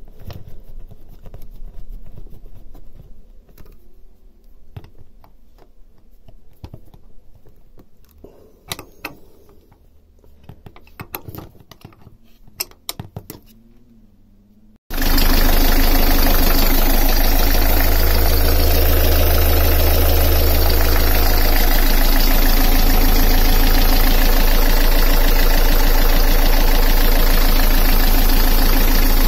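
Faint metal clicks and clinks as the PRM gearbox filler cap is handled, then about halfway through the Beta Marine 38 three-cylinder diesel is heard running loud and steady at idle, with a deeper drone for a few seconds.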